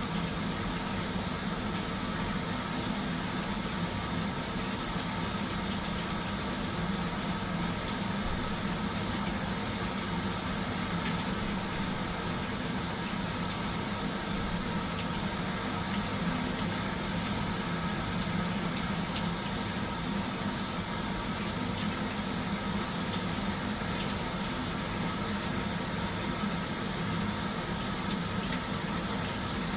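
Washing machine running on a strong cycle: a steady motor hum over an even rushing noise, unchanging throughout.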